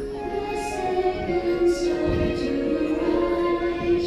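Show music with slow, held notes sung by female voices. A low thud comes about halfway through.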